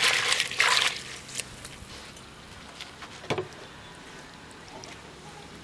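Water poured into an earthen pot over dried fish being rubbed clean by hand, splashing until it stops about a second in. Then quiet, with a few faint knocks and one sharper knock a little past three seconds.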